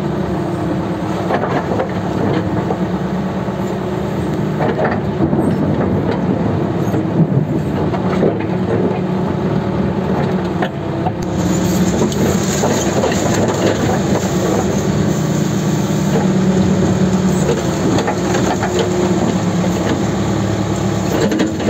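ELEX81A backhoe's engine running steadily under hydraulic load while its rear bucket drags and spreads wet mud and broken sod, with scattered knocks and scrapes. A higher hiss comes in about halfway through.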